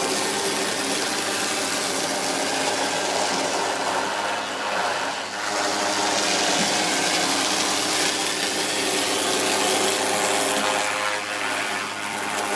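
CNC router at work carving: the spindle runs with a steady whine of several held tones over a loud, even hiss from the cutting bit, easing off briefly twice.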